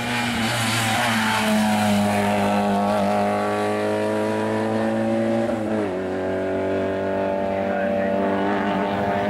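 Small hatchback race car's engine at full throttle, passing and pulling away uphill. The revs climb steadily, drop once a little over halfway through at a gear change, then climb again.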